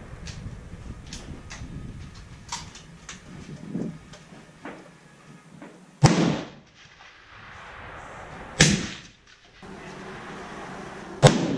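Three rifle shots from centrefire hunting rifles being sighted in, each a sharp crack with a short echo after it, spaced about two and a half seconds apart, the first about six seconds in. Several light clicks and knocks come before them.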